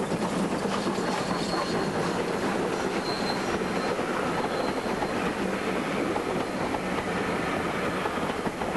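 Train running along the rails: a steady rumble and clatter of wheels, with a faint high wheel squeal that comes and goes.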